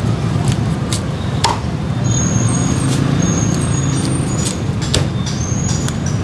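Steady rumble of street traffic, with scattered sharp knocks and a few brief high squeaks over it.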